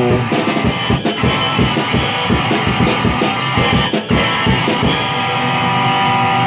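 Rock music with no singing: a drum kit and guitar play, then about five seconds in the drums stop and a held guitar chord rings on.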